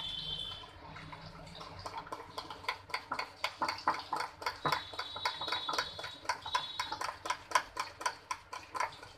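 Hand beating thick besan batter in a glass bowl: quick wet slaps and clicks, several a second, getting stronger after the first couple of seconds. A faint high steady tone sounds in the background near the start and again around the middle.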